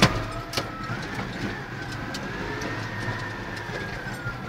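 Massey Ferguson 5455 tractor's diesel engine running, heard from inside the cab, with a thin high whine that rises about a second in and eases down near the end. A sharp knock sounds at the very start and another just after half a second.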